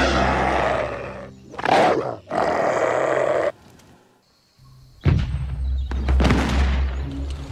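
Cartoon wolf snarling and growling in several rough bursts. The longest burst cuts off suddenly about halfway through, and after a short quiet gap more growling comes over a low rumble.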